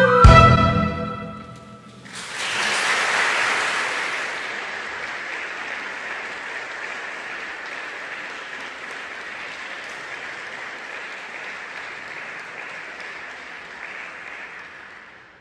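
A choir-and-strings ensemble ends a piece on a final chord that rings out and dies away; about two seconds in, the audience breaks into applause that slowly fades out.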